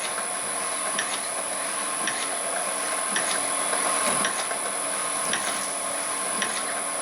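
Homemade crusher machine running on its electric motor: a steady mechanical whir with a faint tick about once a second.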